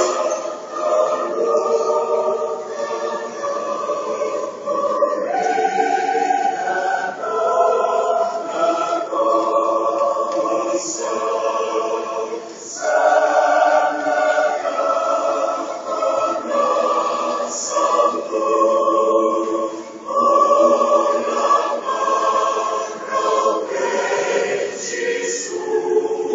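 A large massed choir singing in chords, holding each chord for a second or two before moving to the next.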